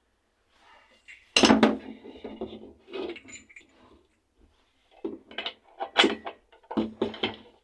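Plumbing fittings for a tank ball valve being handled and fitted together by hand: a loud knock a little over a second in, then clicking and clatter of the parts, and a run of sharp knocks and scrapes near the end.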